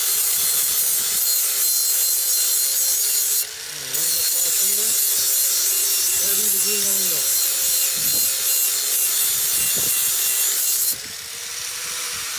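Angle grinder grinding the edge of a steel lawn mower blade, a steady harsh hiss with a whine, sharpening it and taking out nicks and burrs. It comes off the metal briefly about three and a half seconds in, and near the end the grinding stops and the motor winds down in pitch.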